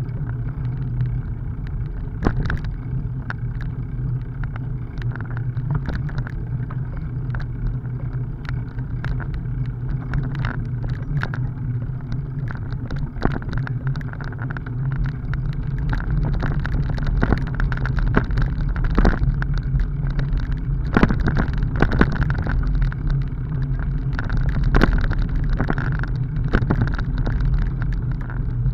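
Bicycle riding over a dirt and gravel track: a steady low rumble of tyres and wind on the microphone, with frequent clicks and rattles as the bike goes over bumps, busier in the second half.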